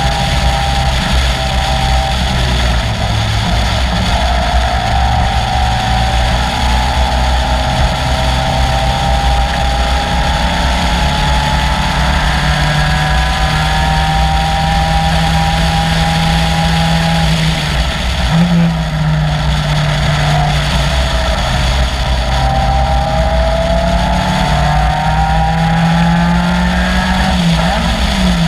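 Caterham Seven's 2.3-litre Ford Duratec four-cylinder engine running hard at race pace, loud and steady, its pitch climbing slowly for long stretches. The revs dip briefly about two-thirds of the way through and again near the end.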